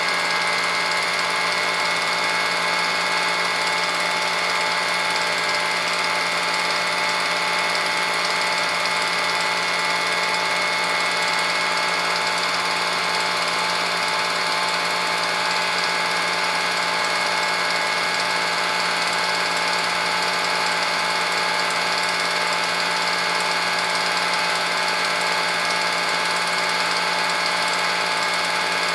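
Home-movie film projector running: a steady mechanical whir with no change in pitch or loudness.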